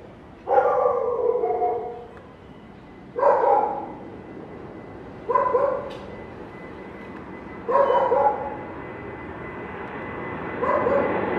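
A dog barking: five drawn-out barks a few seconds apart. Under them a jet's rumble grows steadily louder toward the end, from the Boeing 747 coming in on final approach.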